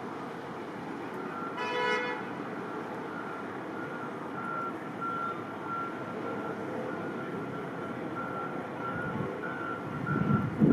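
A vehicle horn gives one short toot about a second and a half in, over steady wind and street noise. A high electronic beep then repeats unevenly for the rest of the time, and a louder low rumble builds near the end.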